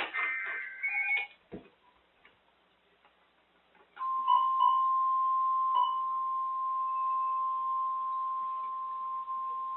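NOAA Weather Radio alert: the warbling digital SAME header tones end about a second in. After a short pause, the steady single-pitch 1050 Hz warning alarm tone starts about four seconds in and holds, with a few faint blips over it. The tone announces that a warning broadcast is about to follow.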